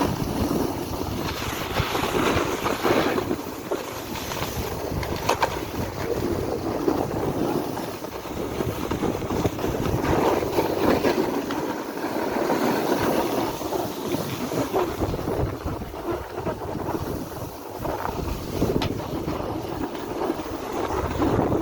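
Wind buffeting the microphone: a loud, uneven rushing that swells and drops every second or two.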